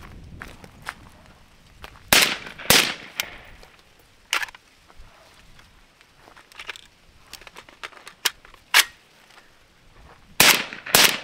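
Suppressed Zastava ZPAP85 5.56 AK rifle firing single shots at irregular spacing, about six in all: two close together about two seconds in, one a couple of seconds later, one near nine seconds, and two in quick succession near the end. Its KNS adjustable gas piston is being dialled in for cycling with the suppressor. Footsteps at the start.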